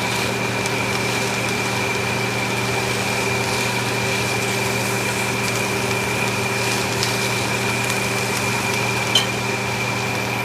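Steady hum of a fan motor, holding several constant tones, with faint crackling and one sharp tick about nine seconds in.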